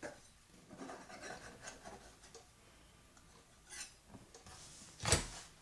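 Knife blade scraping and rubbing around the rim of a pie dish, cutting off the excess pastry, with one sharp knock near the end.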